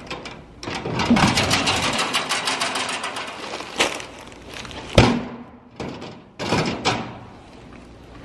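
Clothing and a bag being handled close to the microphone: rustling of a puffer jacket and fabric, then several knocks with a sharp thud about five seconds in.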